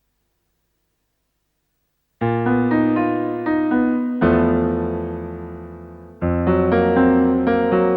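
Near silence, then piano music comes in about two seconds in: chords struck about every two seconds, each dying away, with shorter notes moving in between.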